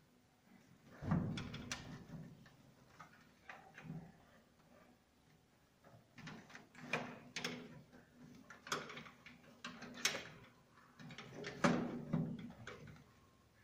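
Irregular clicks, knocks and dull thuds of hands and wires being worked inside a metal electrical distribution board, with the loudest knocks about a second in and near the end.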